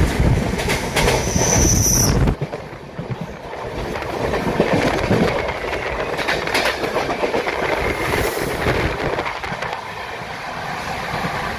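Another train, the Dehradun Jan Shatabdi, passing close alongside with a loud rumble and a brief high whine, which cuts off suddenly about two seconds in. After it, the wheels of the moving train carrying the listener clatter steadily over the rail joints.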